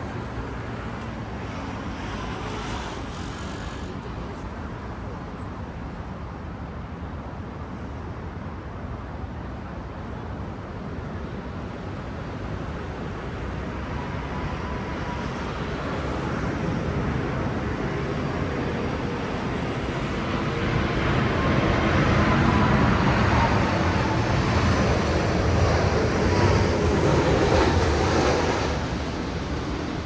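Steady city traffic noise that swells over about ten seconds to a loud engine pass in the second half, then fades near the end.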